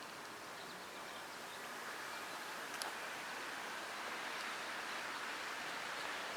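Faint, steady outdoor ambience: an even hiss that grows slightly louder toward the end, with a single small tick about three seconds in.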